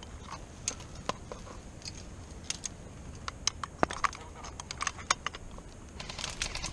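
Dry leaves and twigs crackling in scattered, irregular sharp clicks as someone shifts in dry brush, becoming a denser rustle about six seconds in.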